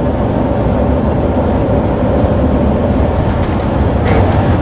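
Inside a tour coach driving on a highway: a steady low rumble of engine and road noise.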